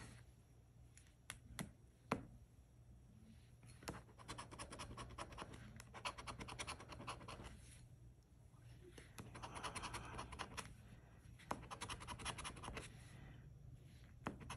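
Coin scraping the latex coating off a paper scratch-off lottery ticket, quiet and rapid, in spells of a few seconds with short pauses between them. A few light clicks come in the first seconds.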